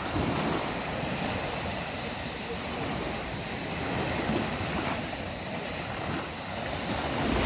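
Sea waves washing in and breaking on the shore, a steady rushing wash with a constant hiss.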